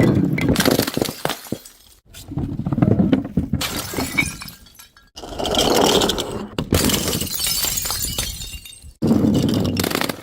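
Glass bottles breaking one after another, about four times. Each break comes in suddenly as a crash and fades out in crunching, and each is cut off sharply by the next.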